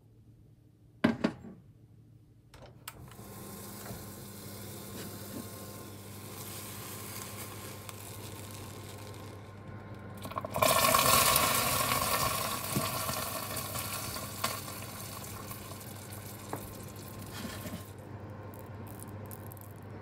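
Hot water spooned into freshly made microwave caramel hisses and sizzles loudly about ten seconds in, then dies down over a few seconds. Before and under it runs the steady low hum of the microwave oven, with a couple of clicks near the start.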